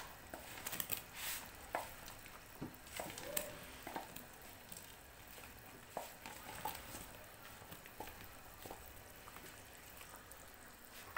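Quiet bubbling of thickened gravy simmering in a pot, with scattered soft clicks and taps as fried chicken pieces slide in off a plate and a wooden spatula stirs them in.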